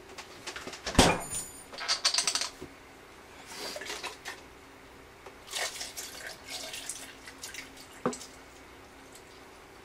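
Kitchen handling sounds: a thud about a second in, then a rattle of ice cubes in a glass, then liquid poured from a carton over the ice with light clinks.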